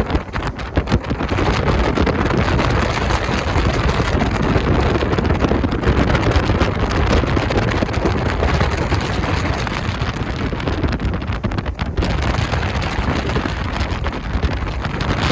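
Wind buffeting the microphone on a speeding jet boat, over the rush of the boat and its spray. It is loud and steady, with quick gusty crackles throughout.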